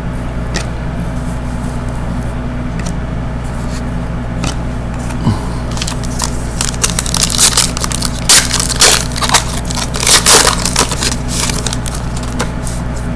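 Crinkling and rustling of trading cards being handled and shuffled. Scattered crackles thicken into a dense run of sharp crinkles for a few seconds in the middle, over a steady low hum.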